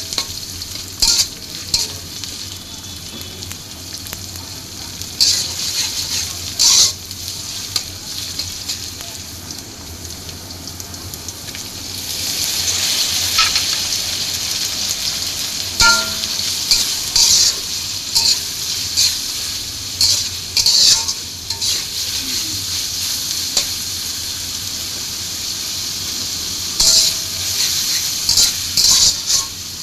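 Food frying in a pan with a steady sizzle, stirred with a spatula that scrapes against the pan every second or two. The sizzle grows louder about twelve seconds in.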